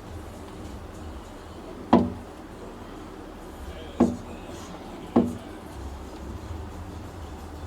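Three sharp knocks, about two seconds apart and then a second apart, each with a short ring, over a low steady hum.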